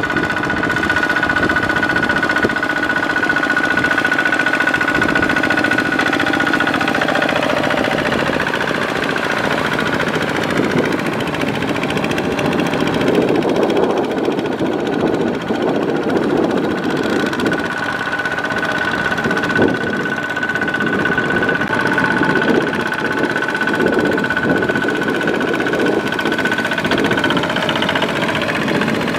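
Two-wheel walking tractor's single-cylinder diesel engine running steadily under load as the cage wheels work through a flooded paddy. A steady high whine sounds over the engine at the start and again for several seconds late on.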